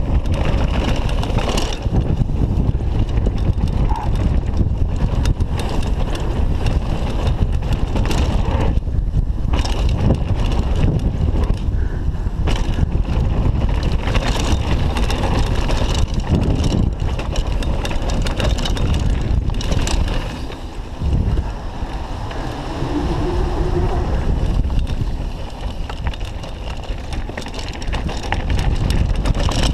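Wind rushing over a chest-mounted camera's microphone as a downhill mountain bike rolls fast over a dirt trail, with the bike rattling and knocking over bumps and landings.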